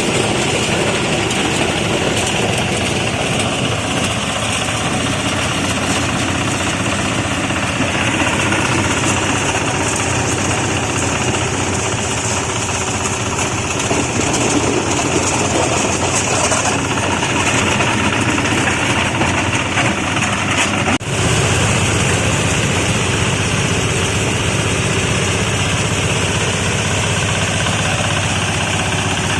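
Market-waste sorting machine running steadily: its motor drones under a dense mechanical rattle as it separates plastic from vegetable waste. There is a brief dip about two-thirds of the way through.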